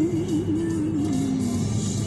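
Music with one long held note that wobbles up and down, slides lower and stops about a second and a half in, over the low rumble of a car on the road.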